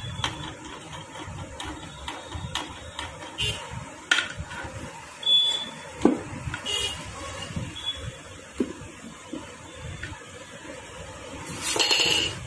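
Scattered metal clinks and knocks as the crankshaft and gearbox shafts of a TVS Star City 110 engine are handled and seated in the aluminium crankcase half. A louder, high-pitched sound comes about a second before the end.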